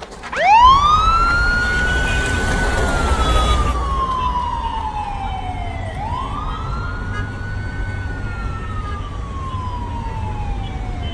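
Police vehicle siren wailing in slow cycles: the pitch rises quickly, holds, then sinks slowly over several seconds. There are two full cycles, and a third rise begins near the end, over a low engine rumble.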